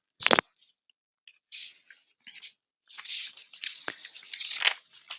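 Pen scratching on paper in short, irregular strokes while sketching, with a brief sharp click just after the start.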